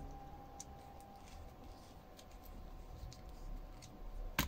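Faint light clicks of a small screwdriver turning an iron bolt into the end of a hollow plastic rod, then one sharp knock near the end as the screwdriver is put down on the bench.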